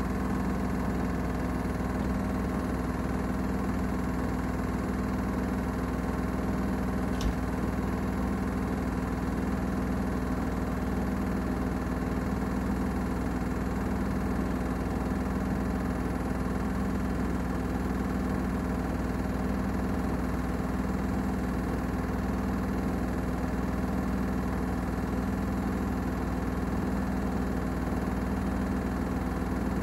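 Gorenje UseLogic front-loading washing machine on a spin-only cycle, the drum spinning at a steady speed with an even motor hum and whine. A single brief click about seven seconds in.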